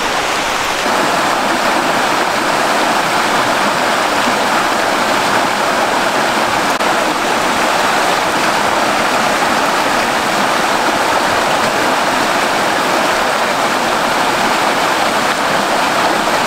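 Shallow rocky mountain creek rushing over stones and small riffles, a steady, even rush of water.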